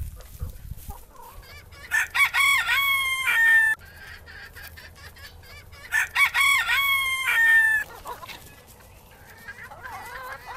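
Rooster crowing twice, each crow nearly two seconds long and about four seconds apart, with fainter calls from the flock near the end.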